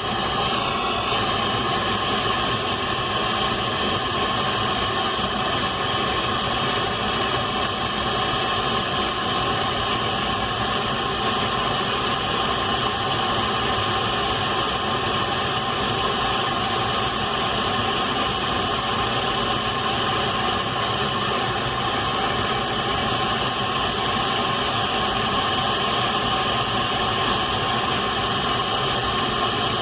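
Radio static: a loud, steady hiss with faint steady tones running through it, unchanging throughout.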